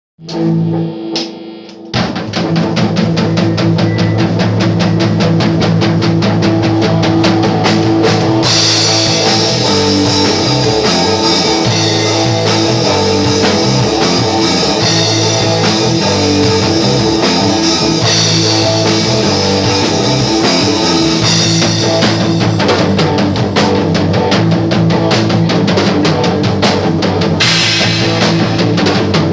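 Rock band playing an instrumental passage on electric guitar, bass and drum kit. It opens with about two seconds of guitar and bass alone, then the drums come in with a steady driving beat. The cymbals grow much louder from about eight seconds in until about twenty-one seconds, and again near the end.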